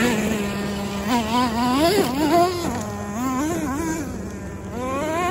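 Traxxas T-Maxx 2.5 RC truck's small nitro engine revving up and down as the truck is driven over rough gravel, its pitch rising and falling repeatedly. It fades about four seconds in as the truck gets farther off, then rises again near the end.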